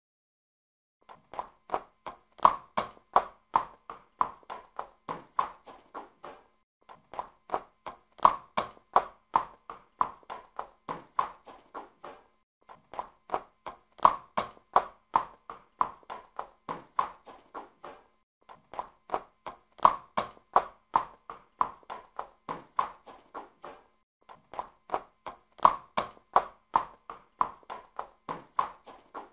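Horse hooves clip-clopping at a quick pace, several sharp hoofbeats a second. The same short recording repeats five times with brief gaps, starting about a second in, and each pass is loudest near its start and then fades.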